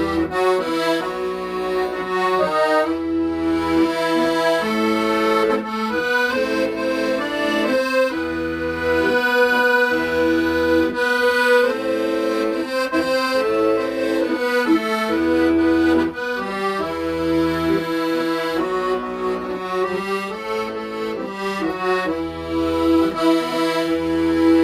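Accordion playing a melody over held chords, with low bass notes coming in regularly about every two seconds.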